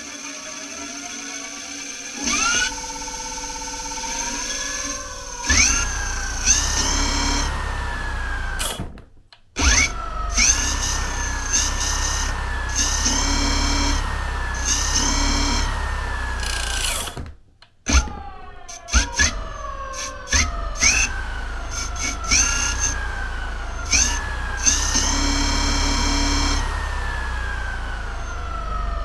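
Laotie ES19 rear hub motor spinning the wheel off the ground, its electric whine rising in pitch as the throttle is opened and falling as it is eased off, several times over. Near the end it winds down as the wheel coasts.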